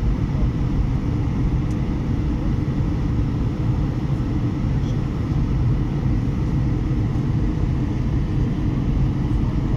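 Steady low rumble of engine and airflow noise inside the cabin of an Airbus A320 descending on approach, heard from a window seat beside the engine.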